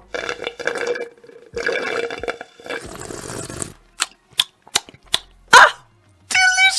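A person drinking through a straw from a glass jar: hissy slurping sips for about four seconds, then several short sharp clicks, and a brief high-pitched vocal sound near the end.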